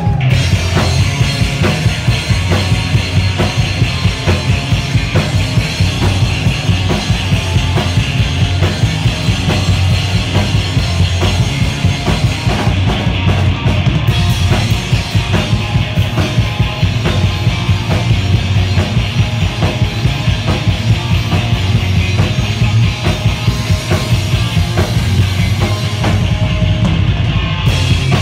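Loud, fast rock music with a driving drum kit and heavy bass.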